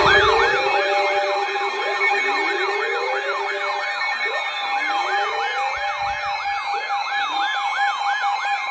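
Several sirens sounding at once. The loudest is a fast yelp sweeping up and down about two and a half times a second, layered over slower rising wails and steady alarm tones.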